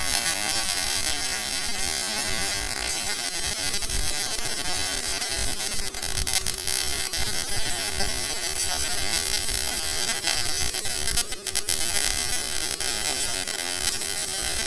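MIG welding arc crackling and buzzing steadily while a bead is laid on steel, starting and stopping abruptly.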